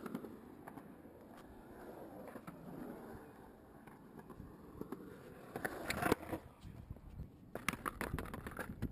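Skateboard wheels rolling over a concrete bowl, a low rough rumble, with several sharp clacks of the board against the concrete close by near the end.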